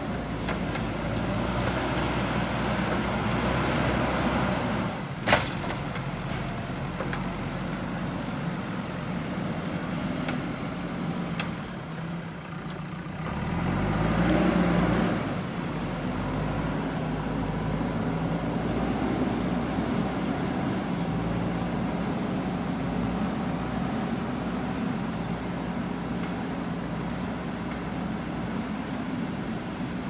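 JCB backhoe loader's diesel engine running steadily as the machine works the soil. There is one sharp knock about five seconds in, and the engine revs up audibly around halfway through before settling back.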